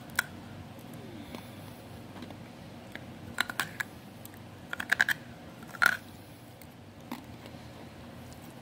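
Ice cube clicking and cracking against teeth as it is bitten and sucked: a single sharp click near the start, then quick clusters of clicks in the middle and a loud one about six seconds in.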